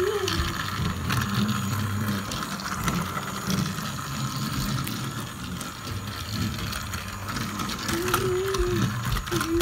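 A motorised toy train running along its track, its small motor and plastic gears whirring steadily.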